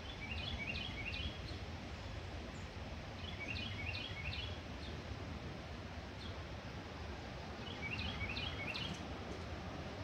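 A songbird sings a short phrase of quick, stepped high notes three times, about every three and a half to four seconds, over a steady low background rumble.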